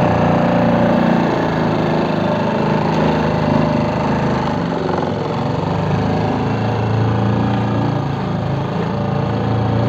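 Small outboard motor on a fishing boat running steadily under way.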